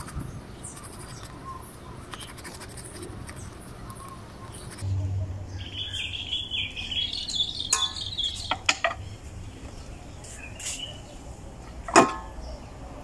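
Hard ostrich eggshell being scored and tapped: a scraping stretch of a couple of seconds, then a few sharp knocks, the loudest near the end. The shell does not crack. Birds chirp in the background.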